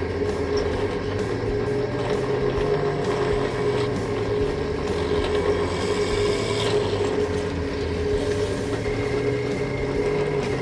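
Electric scroll saw running steadily, its blade reciprocating as it cuts wood.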